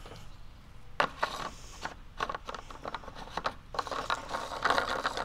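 Handling noise at the top of a beer fermenter: a sharp click about a second in, then irregular scraping and clicking as the plastic cap and fittings are worked by hand.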